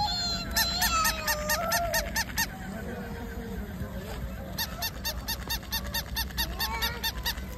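Battery-operated plush toy puppy giving rapid electronic yapping barks through its small speaker, about seven a second, in two runs, the second starting about halfway through.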